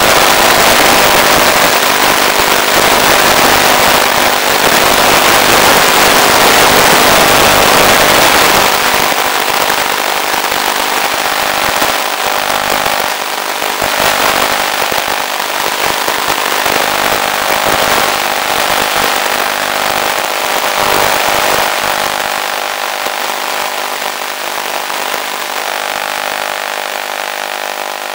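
Electric RC plane's motor and propeller running steadily in flight, heard through the onboard camera's microphone together with heavy wind rush. It is loudest for about the first eight seconds, then a little quieter.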